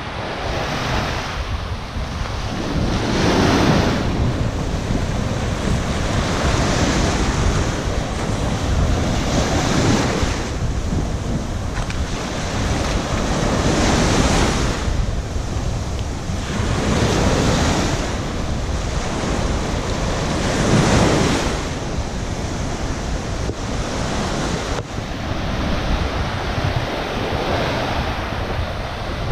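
Surf breaking on a sandy shore, the wash swelling and easing about every three to four seconds, with wind buffeting the microphone.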